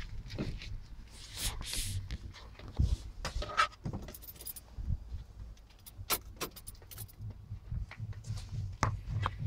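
Keys jangling and clicking, with knocks and rustles from handling, inside a van's cab.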